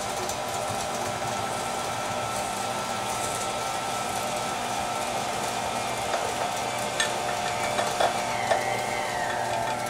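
KitchenAid Ultra Power stand mixer running steadily with a whine, its beater turning dry flour batter as oil and eggs are added. A few light clinks come in the second half.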